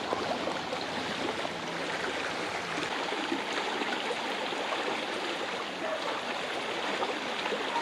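Steady rush of flowing river water where two small rivers meet.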